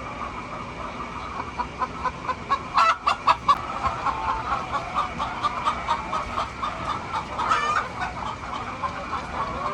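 A flock of hens clucking continuously, with a few louder calls about three seconds in and again near the end.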